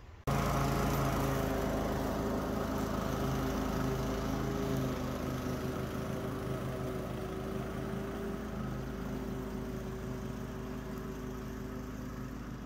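Walk-behind lawn mower engine running steadily while cutting tall, thick grass. It starts suddenly at a cut just after the start and grows gradually fainter as the mower moves away.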